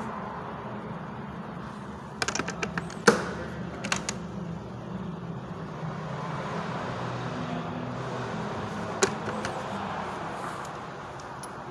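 Hand tools and a metal tool cart being handled: a quick run of small clicks, a loud sharp knock about three seconds in, a few more clicks, and one more click near the end, over a steady background hiss.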